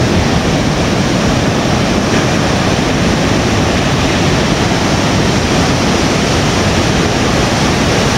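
Ocean surf breaking over rocks and a pebble shore: a steady, loud rush of noise.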